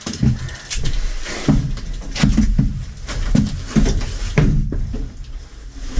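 Metal grille cage door of a police van's prisoner compartment being yanked and shoved from inside, giving repeated bangs and rattles about once or twice a second.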